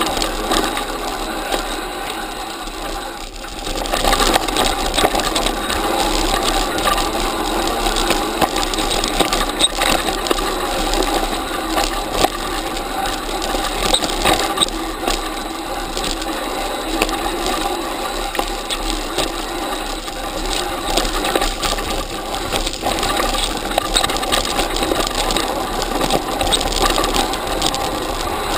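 Mountain bike clattering down a rough, rutted dirt trail, picked up by a camera fixed to the bike: a dense, continuous rattle of knocks from the frame and camera mount shaken by the terrain. It eases briefly about three seconds in, then picks up again.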